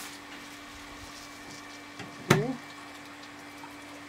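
Swimming-pool filter pump running with a steady hum and water rushing through the filter, backwashing the accumulated dirt out to waste. A single loud knock about two seconds in.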